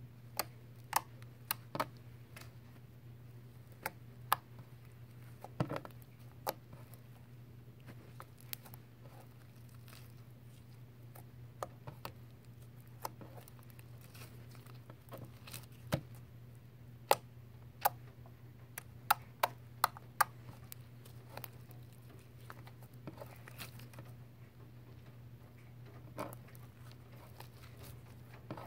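Pink homemade slime of glue, baking soda and eye drops being poked, squeezed and stretched off a wooden tabletop: scattered sticky clicks and pops, over a steady low hum.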